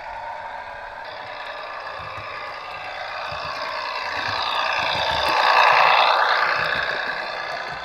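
Sound decoder of a Bachmann OO-scale Class 101 DMU model playing diesel railcar engine sound through its small onboard speaker, thin and without bass. The sound swells to its loudest about six seconds in, with pitch gliding, then falls back.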